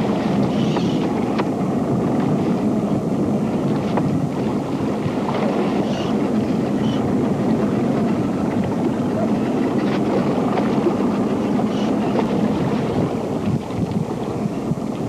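Steady rushing wind on the camcorder's microphone, out on open water.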